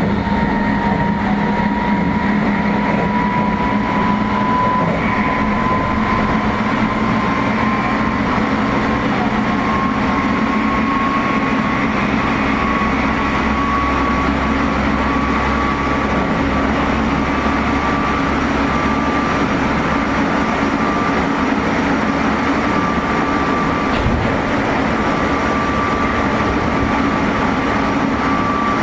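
Inside a Meitetsu 3500 series electric train with Toyo Denki GTO-VVVF traction equipment, running under way. A high-pitched motor whine rises slowly and steadily in pitch as the train picks up speed, over steady wheel and rail noise. There is a single knock near the end.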